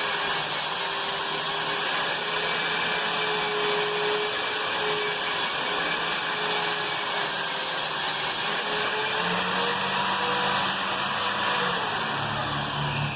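Electric wall sander with a built-in dust-extraction turbine running steadily while sanding: a continuous whirring hum with a faint whine that shifts slightly in pitch about two-thirds of the way in.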